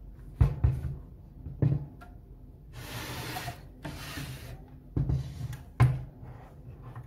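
Handling noise as an opened electronic load's metal and plastic case is turned over in the hands: a few dull knocks and bumps, with two short rustling rubs in the middle.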